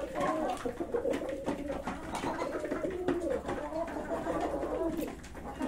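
Domestic pigeons cooing continuously, several birds' low warbling coos overlapping.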